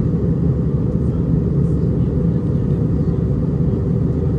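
Steady low rumble of an Airbus A319-114's engines and airflow, heard inside the passenger cabin while the airliner flies its approach.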